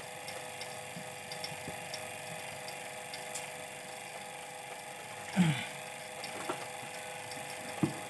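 Refrigeration vacuum pump running steadily with an even motor hum, evacuating a refrigerator's sealed system through a manifold gauge set. A brief sound about five seconds in.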